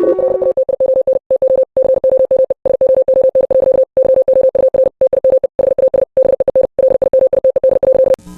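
A steady electronic tone, one held pitch, repeatedly chopped by short irregular dropouts into a stuttering glitch, which stops with a click near the end.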